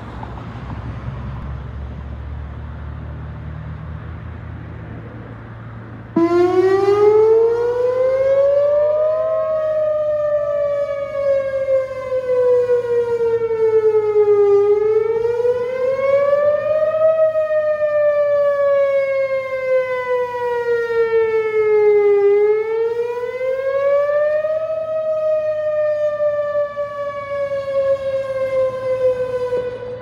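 Rotating electronic outdoor warning siren sounding a wail in a test. It comes on suddenly about six seconds in and glides slowly up and down in pitch, one rise and fall every seven or eight seconds, its loudness swelling and dipping as the horn turns. Before it starts, only road traffic noise.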